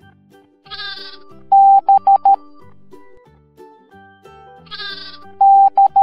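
A sheep bleats, then a steady Morse code beep tone spells B: one long beep and three short ones. Near the end another bleat is followed by the start of C's Morse code, long, short, long. Light children's background music plays throughout.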